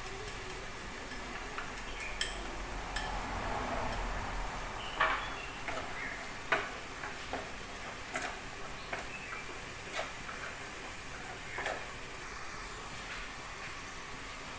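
Snails braising in a lidded frying pan on a gas burner: a low steady sizzle with scattered sharp pops and ticks every second or so as the liquid cooks down.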